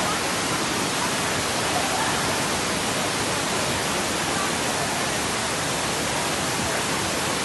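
Steady rush of a fast, muddy, swollen river pouring over rapids and small falls: a dense, unbroken wash of water noise at an even level.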